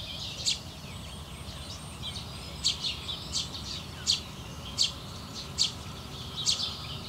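Birds singing: one bird repeating a short, sharp chirp, a few times at first and then about once every three-quarters of a second, over fainter twittering from other birds.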